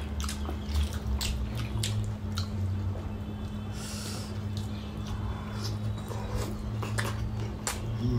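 Two people eating steamed pork momos by hand: wet chewing and smacking with many quick, irregular mouth clicks, and a brief hiss at about four seconds, over a steady low hum.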